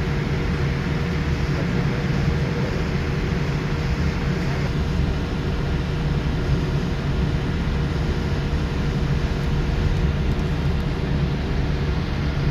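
Boeing 787-8 cabin noise while taxiing, heard from inside the cabin: a steady low engine rumble and air rush with a constant humming note, unchanging in level.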